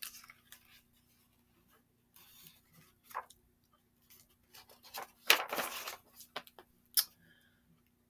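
Pages of a picture book being handled and turned: scattered soft taps and paper rustles, with the loudest swish of a page a little past halfway and a sharp tap about a second later.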